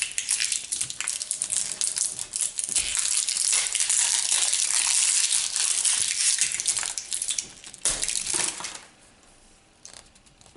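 Tight plastic wrapping crinkling and crackling as it is pulled and torn off a Play-Doh stamper figure. The crackling runs for about nine seconds, then stops, leaving a few faint clicks.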